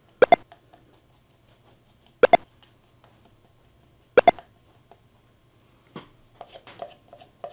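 Three short, loud double pops with a brief pitched ring, evenly spaced about two seconds apart, then faint light clicks and taps near the end.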